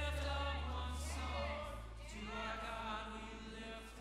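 Group of voices singing a worship song over sustained low bass notes; the bass note changes about one and a half seconds in.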